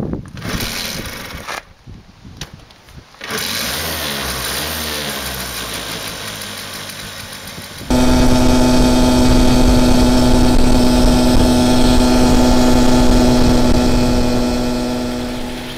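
Simson Duo's small two-stroke engine being started by hand, faltering with short gaps, then running from about three seconds in with its speed wavering. About eight seconds in it switches to a louder, steady run at speed, heard close to the engine's fan-cooling shroud.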